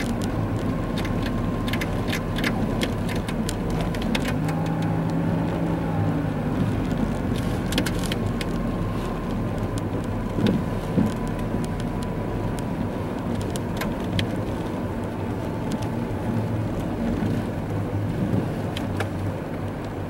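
Car driving on a snow-covered road, heard from inside the cabin: a steady low engine and tyre hum with many scattered sharp ticks.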